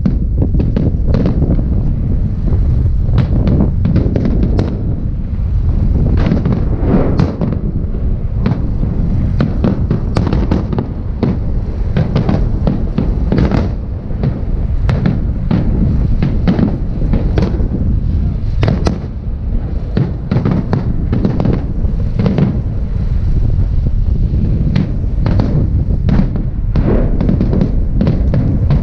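Large fireworks salute: shells bursting in rapid succession, many sharp bangs over a continuous low rumble.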